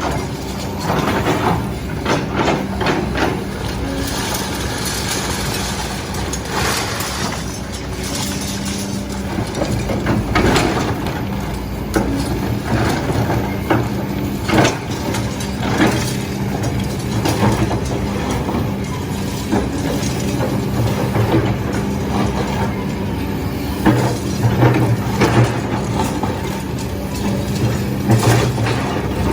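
Diesel engine of a heavy steel-toothed rock-crushing machine running steadily under load, with repeated irregular crunches and knocks as rock is broken up.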